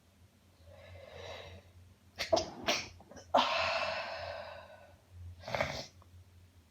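A woman in a sneezing fit: a drawn-in breath, then a quick cluster of sharp sneezes about two seconds in, a louder sneeze that trails off slowly, and one more near the end.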